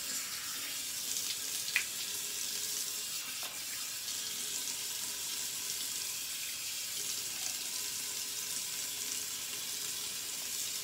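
Bathroom sink tap running steadily while she washes her face, with a small knock about two seconds in.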